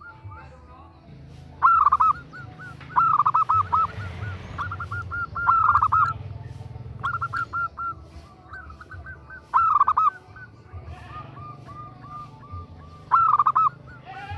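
Female zebra dove (perkutut) cooing: short bursts of rapid, rolling coo notes repeated every couple of seconds, with fainter runs of coos in between. This is the call a female in breeding condition gives to draw a male.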